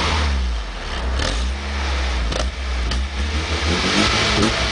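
1.4-litre 12-valve petrol car engine running and being revved, with a steady low drone that dips and swells, and a few short sharp clicks.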